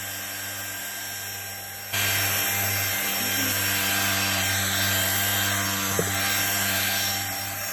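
Deerma CM818 handheld dust mite vacuum cleaner running steadily, its motor humming under an airy hiss while its head vibrates. About two seconds in it turns suddenly louder and hissier, with a rubbing quality.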